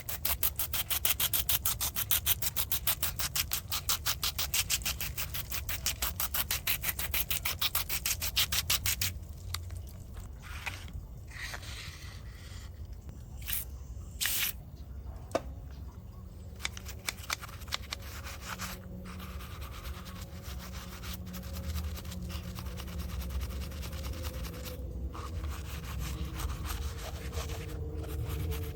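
Rapid, even scrubbing strokes rubbing over a diecast model car, which stop about nine seconds in. After that come quieter handling noises with a few sharp clicks over a low hum.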